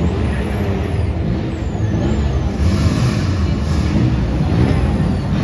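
Rally car engine running close by with a low, steady rumble, growing a little louder about halfway through.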